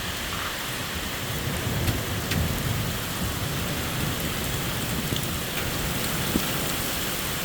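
Steady heavy rain with small pea-sized hail, scattered hailstones ticking off the car, and a low rumble of thunder about two seconds in.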